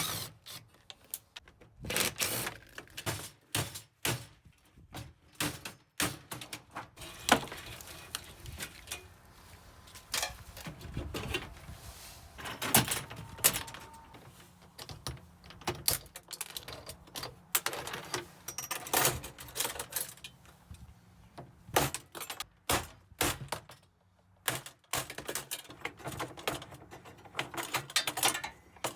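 Irregular clicks, clanks and knocks of hand tools and loose metal and plastic parts as a dishwasher is taken apart for scrap, with short pauses between bursts of work.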